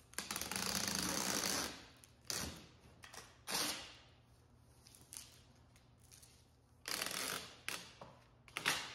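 Packing tape pulled off a hand-held tape dispenser with a long rasping screech, then short tearing sounds as the tape is cut and pressed down. A second pull of tape and a sharp snap of the tape being cut come near the end.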